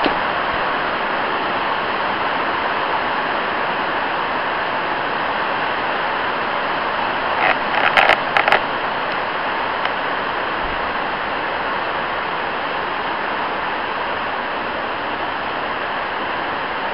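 Heavy rain on a shed roof: a loud, steady, deafening hiss. A short cluster of knocks comes about halfway through.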